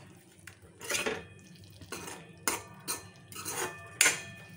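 Metal spoon scraping and clinking against a metal pan while stirring drumstick pods in onion paste: several separate strokes, the loudest about four seconds in.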